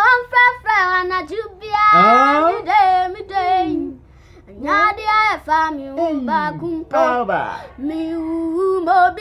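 A young boy singing, with long held notes that slide in pitch, pausing briefly about four seconds in.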